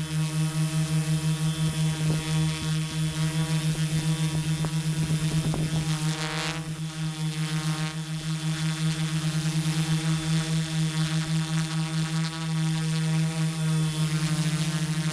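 Multirotor drone's Turnigy Multistar brushless motors and propellers humming in a steady hover, heard from the onboard camera: a steady drone with a fast, even pulsing beat and a short change in pitch about six seconds in.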